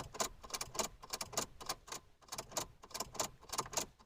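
Rapid, fairly even clicking, about three to four sharp clicks a second.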